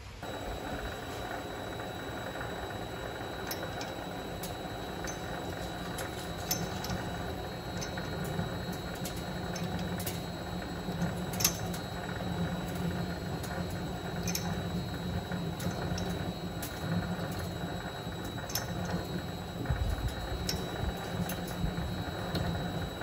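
Vevor MX 400 mini lathe running steadily while a drill bit fed from the tailstock bores a hole in the spinning workpiece, with a faint steady motor whine and scattered irregular ticks.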